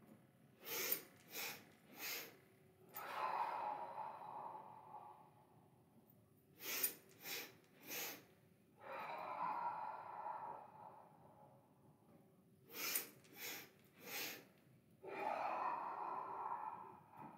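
Breath of Joy breathing practice: three quick sniffed inhalations in a row, then one long exhalation of about two seconds. The cycle is repeated three times.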